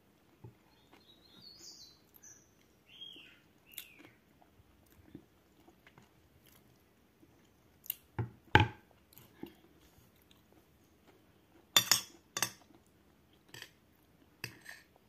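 Someone eating: chewing, and a metal spoon knocking sharply against a plate a few times, loudest about eight and a half seconds in and twice near twelve seconds. A bird chirps several short notes in the first few seconds.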